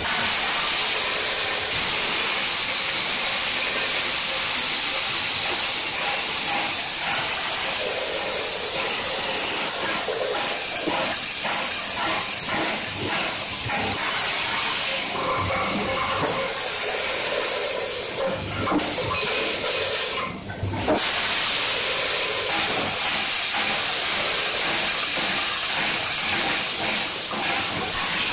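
Screw-packing line of a vertical form-fill-seal bagger and multihead weigher running, heard as a loud, steady hiss with faint clicking underneath; the hiss dips briefly twice, about 18 and 20 seconds in.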